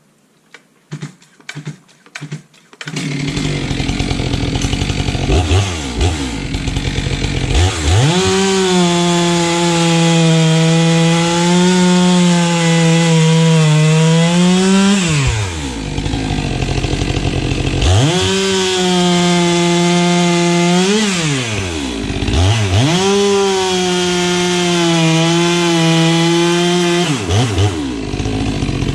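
STIHL MS 462 two-stroke chainsaw making three long cuts through logs at full throttle. The engine pitch sits lower while the chain is in the wood and rises sharply as each cut breaks through, then drops back between cuts. A few sharp clicks come before the saw starts running about three seconds in.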